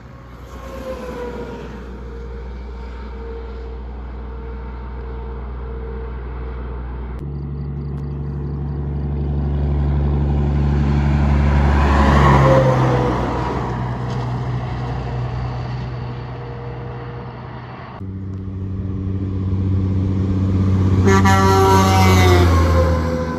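Heavy diesel trucks driving past one after another, each a deep engine rumble that swells as it approaches and drops in pitch as it goes by. The passes peak about twelve seconds in and again near the end.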